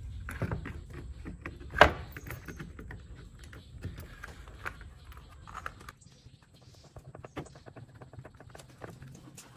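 Plastic parts of an electric fan being handled and fitted together: scattered light clicks and knocks of plastic on plastic, with one sharp knock about two seconds in.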